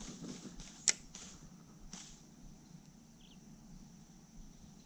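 A spinning reel clicking as the rod is cast: one sharp click about a second in, then a couple of fainter clicks, over a quiet background.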